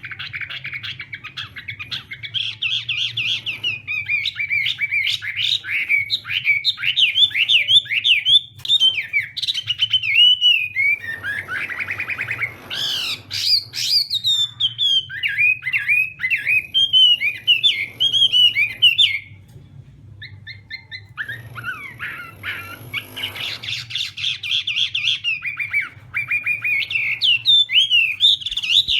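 Chinese hwamei singing a long, fast run of varied whistled notes, broken by a pause of about two seconds past the middle, over a steady low hum.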